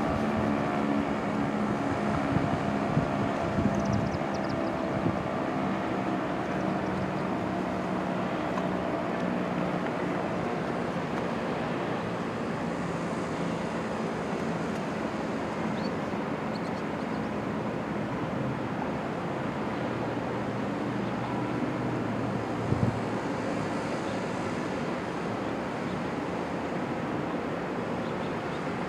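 Federal Signal STL-10 outdoor warning siren winding down at the end of its test: its tone falls slowly in pitch and fades out over about the first ten seconds. Steady wind and traffic noise follow.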